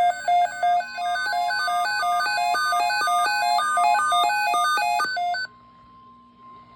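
Midland WR120 weather radio sounding its electronic alert for an incoming weather warning message. It begins with a few rapid beeps, then a fast, stepping multi-tone warble. This stops abruptly about five and a half seconds in, leaving a faint steady tone.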